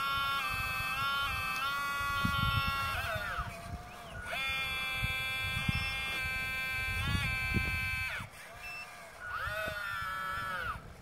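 Hydraulic pump of a radio-controlled model Cat 320 excavator whining steadily while the arm and bucket move. The whine cuts out twice, sagging in pitch as the pump stops, then spins back up as the controls are worked again. Low soft thuds from the bucket digging into soil sit underneath.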